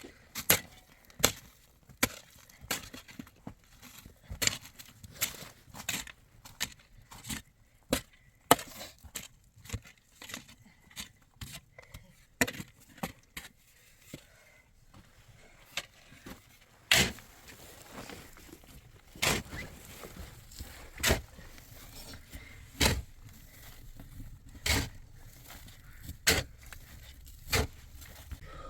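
Repeated chopping strikes of a hand tool, quick and irregular for the first half, then more spaced, about one blow every two seconds.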